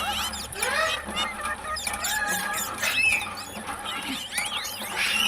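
Parrots calling: a rapid, continuous string of short squawks and chirps, each one sliding up or down in pitch.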